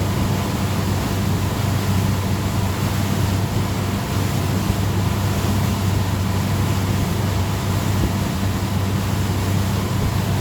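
Motorboat engine pulling at steady speed, a constant low hum, with the rush of water around the hull.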